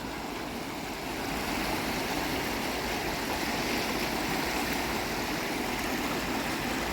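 A river in flood, swollen by water released from a dam, rushing steadily past; the rush grows a little louder about a second in.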